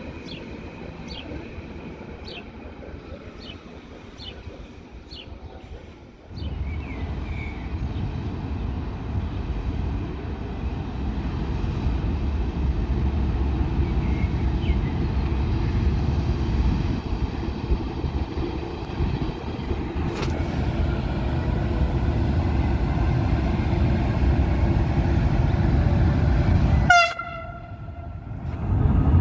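Electric locomotive-hauled passenger train approaching, a steady low rumble of motors and wheels on rail that slowly grows louder. It ends with a short horn toot near the end.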